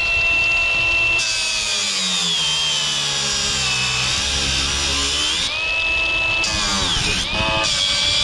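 Cordless angle grinder with a cut-off wheel cutting through a cap screw in steel roofing: a steady high whine over a harsh grinding hiss. The pitch sags under load for several seconds, picks back up, then dips again near the end.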